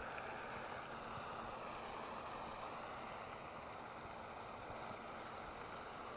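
Steady outdoor wind and water noise with a faint low hum underneath.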